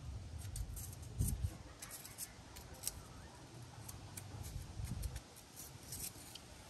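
Faint scratching and small scattered clicks of a spark plug being cleaned by hand, with a couple of soft handling knocks.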